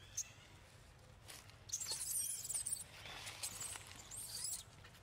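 Long-tailed macaque giving high-pitched wavering squeals in two bouts, about two seconds in and again about three and a half seconds in.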